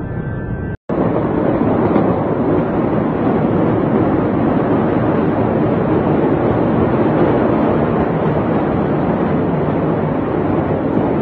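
Loud, steady rushing noise with no distinct bangs or voices. It cuts out briefly about a second in, then resumes.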